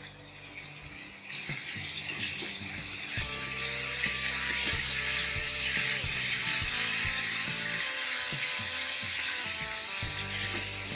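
Raw minced mutton sizzling steadily in hot oil in a wok as it starts to fry, with occasional taps and scrapes of a wooden spatula stirring it against the pan. Soft background music plays underneath.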